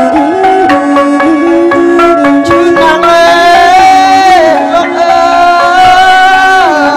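Traditional Lakhon Bassac ensemble music: melodic instruments playing a stepping melody of held notes over a steady run of drum strikes.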